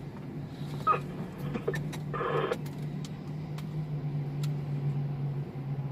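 An engine running with a steady low drone, with scattered light clicks and a brief noisy burst about two seconds in.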